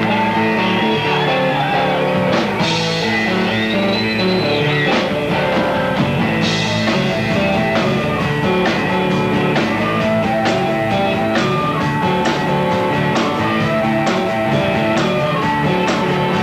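Live blues-rock band playing: electric guitars over a drum kit keeping a steady beat.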